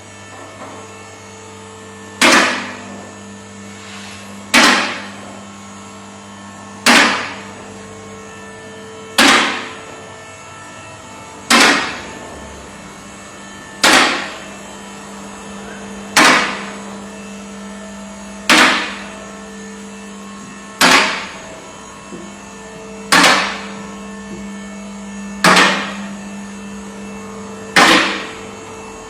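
Workshop car lift being raised: a steady motor hum, with a sharp clack that dies away quickly repeating evenly about every two and a quarter seconds.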